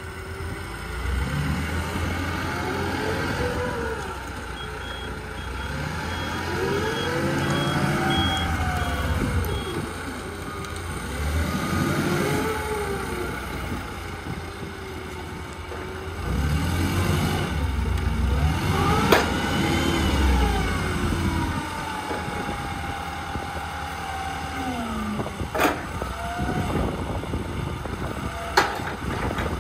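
Komatsu 25 forklift running, its engine revving up and easing off about four times, the pitch rising and falling each time. A few sharp clicks come near the end.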